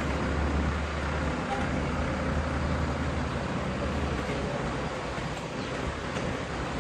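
Fire truck's engine running steadily, a low hum under a haze of street noise; the hum drops back about a second and a half in.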